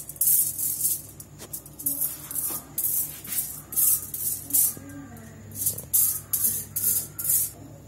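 Silicone pastry brush swept quickly back and forth over a sheet of aluminium foil to grease it with melted ghee: crisp rustling strokes, about three a second, with a short pause about five seconds in.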